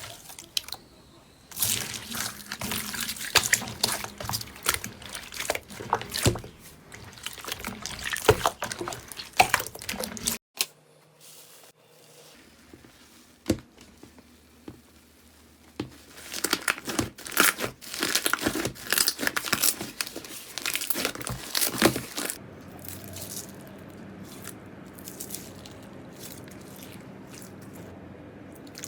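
Slime being squished and pressed, giving dense crackling and popping clicks in two long stretches, with a sudden break about ten seconds in and a quieter, softer stretch near the end.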